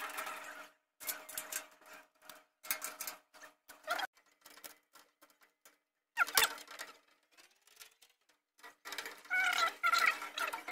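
Cabinet panels and a shelf being handled and fitted together during assembly: scattered clicks and rattles in short separate bursts, with a sharp knock about six seconds in.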